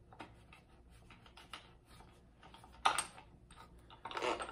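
Light, rapid metallic clicking of a 13 mm wrench working loose the nut inside the base of a shotgun's butt stock, with a sharper click about three seconds in and a short clatter of handling near the end.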